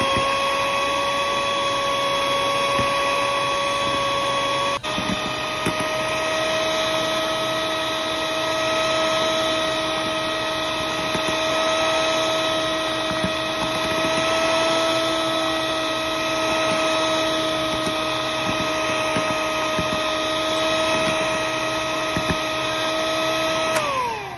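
Electric hand mixer running steadily with a high motor whine as its wire beaters whip eggs and sugar in a glass bowl. The pitch steps up about five seconds in, holds steady, then falls away as the mixer stops near the end.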